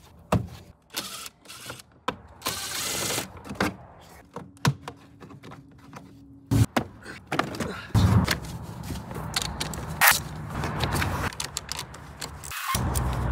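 Hands unclipping and handling parts in a car's engine bay while the airbox and battery tray come out: scattered clicks, knocks and scrapes.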